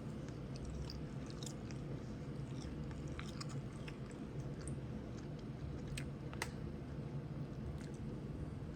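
Close-miked chewing of crunchy food: soft mouth sounds with scattered crisp crunches, two sharper ones about six seconds in, over a steady low background hum.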